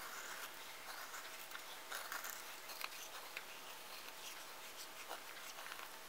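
Puukko knife blade shaving thin curls off a small wooden stick to make a feather stick: a series of faint scraping strokes, clearest in the first three seconds.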